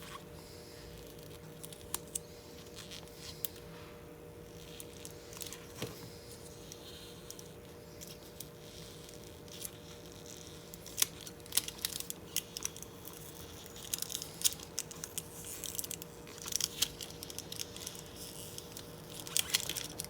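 Thin polarizing film being peeled by hand off a laptop LCD panel, giving small crackles, ticks and tearing sounds as the brittle film comes away in pieces. The crackling comes more often in the second half, over a faint steady hum.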